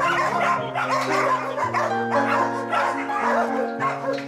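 Background music with sustained notes, and dogs in wire kennels barking and yipping over it in short repeated bursts.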